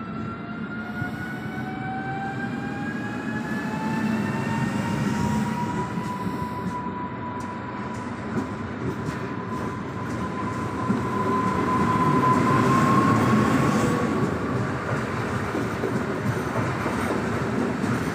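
Electric train accelerating along the platform, its traction drive giving a whine that rises slowly in pitch, levels off about two-thirds of the way through and then fades, over the steady running noise of the train.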